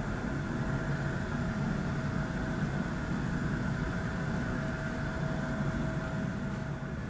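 Distant Boeing 787-9 airliner's jet engines running as it rolls along the runway: a steady low rumble with a faint steady whine.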